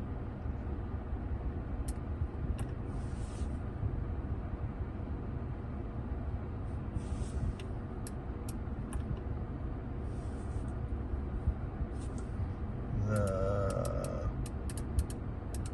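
Steady low rumble inside a car's cabin with the engine running, with scattered light clicks. About thirteen seconds in, a brief wavering tone sounds for about a second.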